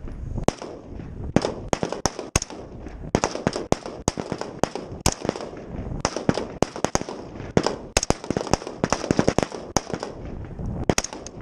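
Rifle gunfire from several shooters on a firing line, weapons set to semi-automatic: sharp single shots overlapping at irregular spacing, several a second, without a pause.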